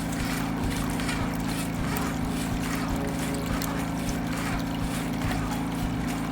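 A high-pressure drain-jetting machine running with a steady, even hum, with an irregular hiss over it.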